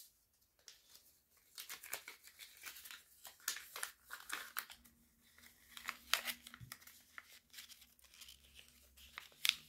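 Crinkling and rustling of packaging being handled: a long, irregular run of short crackles.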